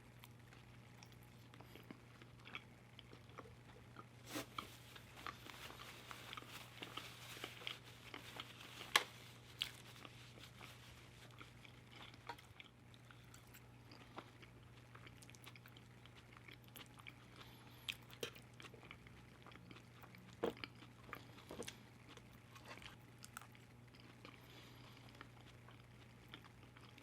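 Close-miked chewing and mouth sounds of someone eating loaded fries, with scattered soft clicks and a few sharper snaps about nine and twenty seconds in, over a steady low hum.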